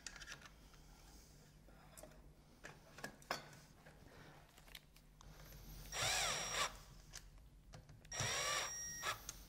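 Cordless drill/driver driving screws into a metal corner bracket of a roller blind frame: two short runs of the motor, about a second each, its pitch rising and falling as each screw goes in, after a few light clicks of handling.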